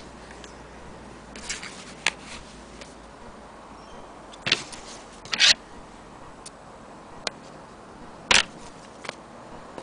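Irregular sharp clicks and knocks from an antique Willcox & Gibbs sewing machine being handled, its metal parts clicking. There are about seven, spaced unevenly, and two of them are louder.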